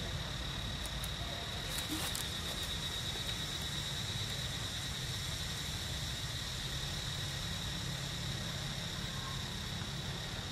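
Steady outdoor insect drone, a continuous high-pitched buzz, over a low rumble, with a few faint clicks about two seconds in.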